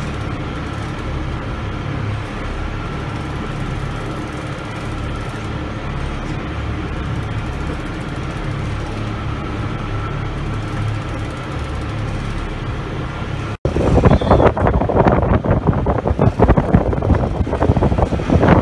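Fishing boat's engine running steadily, a low even drone with a faint whine. About 13 seconds in the sound cuts, and loud wind buffets the microphone over the engine.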